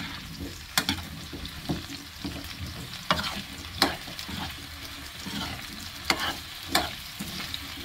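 Metal spoon stirring sliced pumpkin in a nonstick frying pan, clacking and scraping against the pan at irregular moments over the soft sizzle of frying.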